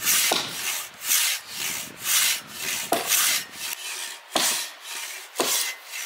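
Silky Katanaboy large folding pull saw cutting through a thick beech log in even back-and-forth strokes, about two a second, with a few short sharp knocks in between.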